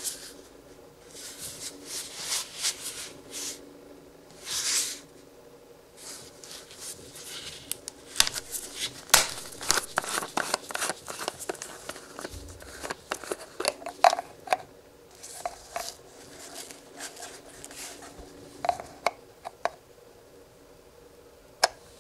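Plastic screw cap of a motor oil bottle being twisted open by a gloved hand: rubbing and scraping first, then a long run of sharp plastic clicks and snaps as the cap is turned off its thread, with one last click near the end.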